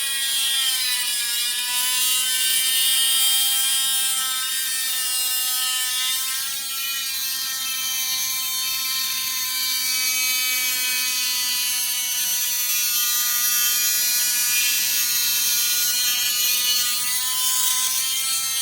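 Dremel Stylo+ rotary tool with a steel tile-cutting bit grinding a hole into a hard seashell: a steady high-pitched motor whine that dips slightly in pitch a couple of times as it bites.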